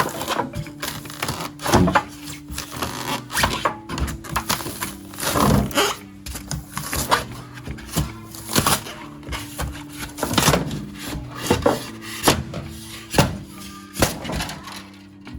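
Background music with steady held notes, over frequent sharp clanks and knocks from a refrigerator being taken apart for scrap.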